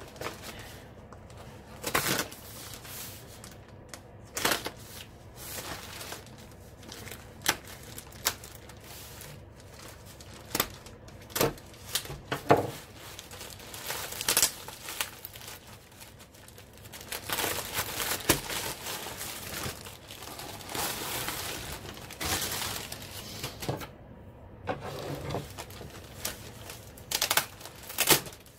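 Plastic mailing bag crinkling and tearing as it is cut open with a knife and a plastic-wrapped roll is pulled out of it. Irregular rustles and crackles, with some sharp snaps.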